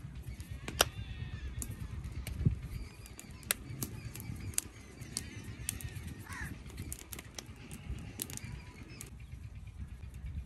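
Birds chirping and calling, with many short sharp clicks scattered through and a low rumble underneath.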